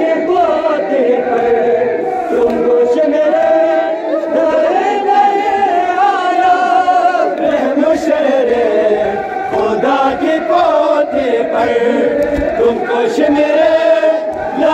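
A group of men chanting a nauha, a Shia mourning lament, together in unison, the voices going on steadily without a break.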